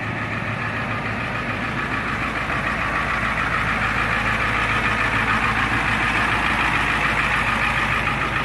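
1988 Ford F250's 7.3-litre International diesel V8 idling steadily, a little louder in the second half.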